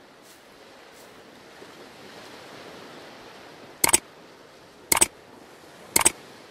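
Soft, steady surf-like hiss, then three sharp mouse-click sound effects about a second apart, starting about four seconds in, as an animated cursor presses subscribe, like and comment buttons.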